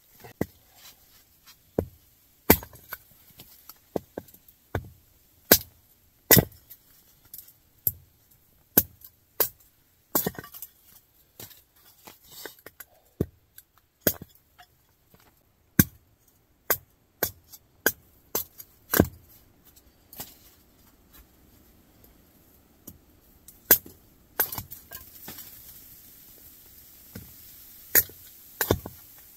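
Kindling being chopped by hand: a series of sharp chopping strikes of a blade into wood, roughly one a second at an uneven pace, for the tent stove's fire.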